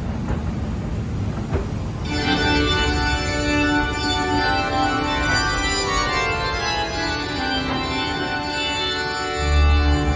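Organ music from the ride's show soundtrack: sustained chords start about two seconds in, over a low rumble from the moving mine train. A deep bass note comes in near the end.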